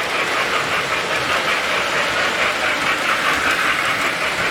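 Three-rail model trains running on the layout's track: a steady rolling clatter of wheels and motors with a fast, even pulsing rhythm.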